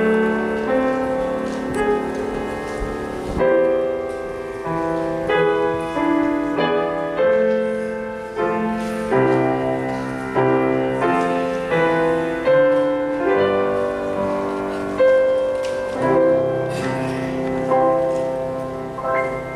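Piano playing a slow, chordal piece, each chord struck and left to fade before the next.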